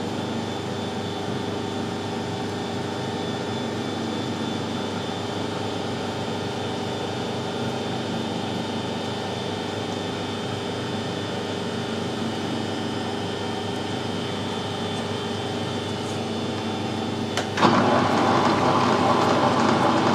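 Steady mechanical hum of a machine shop. About seventeen seconds in there is a click, then the metal lathe comes in with a much louder, rougher steady running noise as it starts up to turn the cast-iron back plate.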